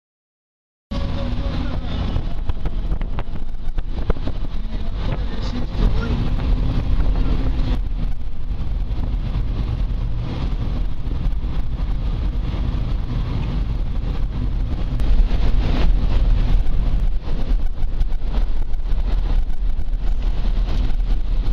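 Motor vehicle's engine running with steady low engine and road rumble, heard from on board as it drives along.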